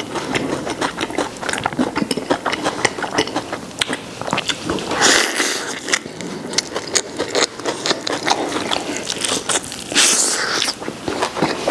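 Close-up crunchy chewing of a mouthful of Peking duck rolled with raw napa cabbage (Qianlong cabbage), crisp cabbage crackling between the teeth in quick irregular crunches. Two short hissing breaths cut in, about five and ten seconds in.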